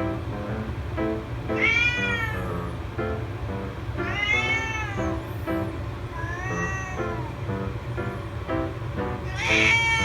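Kitten meowing four times, each meow rising then falling in pitch: insistent calls demanding to be played with. Background music with short repeating notes plays underneath.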